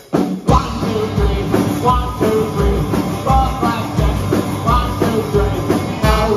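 Live punk rock band with electric guitars, drums and trombone kicking into a song about half a second in, over a steady kick-drum beat.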